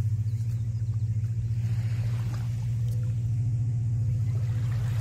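An engine running steadily, heard as a low, even hum with a fast regular throb.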